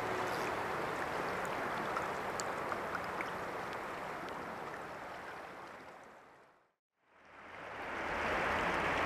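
River water rushing past, a steady wash that fades away to silence about six and a half seconds in and fades back in a second later.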